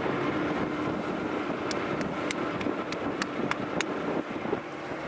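A small boat's motor running steadily, with wind and water noise on the microphone. Around the middle, a quick run of about seven sharp, high clicks.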